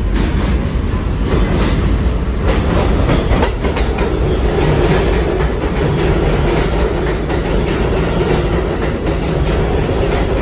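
New York City Subway R142A train pulling in alongside an elevated platform: a loud, steady rumble of steel wheels on rail, with a rattle of clicks about three seconds in and a motor whine rising in pitch near the end.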